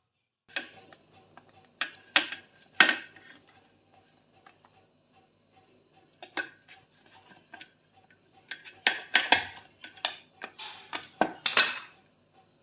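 Metal kitchen utensils and dishes clinking and clattering: scattered sharp knocks with quiet gaps between, busiest about two to three seconds in and again near the end.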